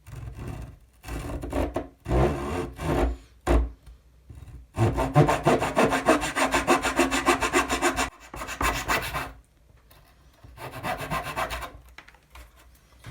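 Small hand tool rasping back and forth on a thin wooden capping strip. It comes in a few short bursts, then a steady run of quick strokes for about three seconds, then two more short bursts.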